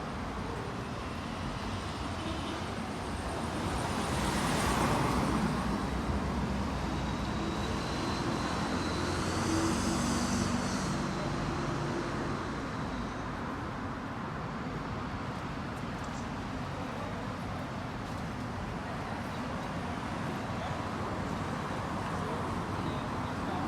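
Steady city street traffic noise. One vehicle passes close about five seconds in, and another passes with a high whine about ten seconds in.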